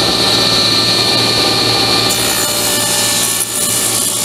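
Table saw running with a steady whine, then ripping into an old wooden board partway through, the rougher cutting noise joining the whine as the board is pushed through the blade along a crack.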